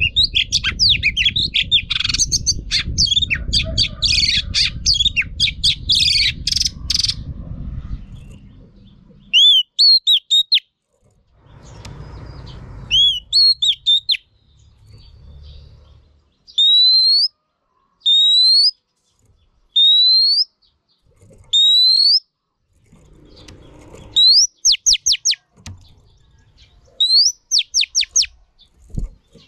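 Female oriental magpie-robin calling. For the first several seconds it gives a dense burst of rapid chattering notes over a low rumbling noise. Then come single rising whistled notes about every two seconds, and near the end quick runs of rising notes.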